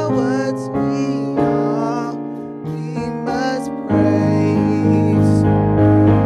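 A young male singer performing live through a microphone over keyboard accompaniment, his voice sliding and wavering between notes. About four seconds in, a fuller, louder keyboard chord with bass comes in under him.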